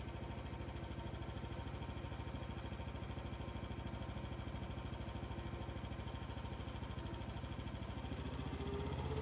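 Briggs & Stratton 13.5 HP engine running steadily at low speed, about 1,570 RPM. Near the end it starts to speed up as the throttle is opened toward 3,600 RPM for an alternator output test.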